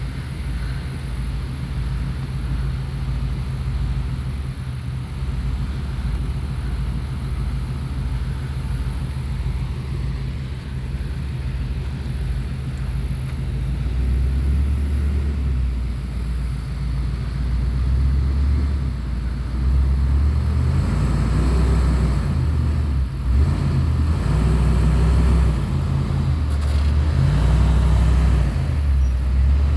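An RV's engine runs at low speed as it is driven over rocky ground. It grows louder about halfway through, and its pitch rises and falls as it works over the rocks.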